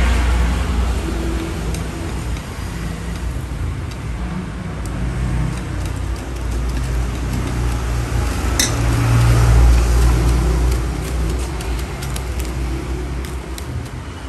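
Low engine rumble of passing motor traffic that swells and fades, loudest about two-thirds through, with light clicks and a sharp clink of a utensil against a stainless steel pot.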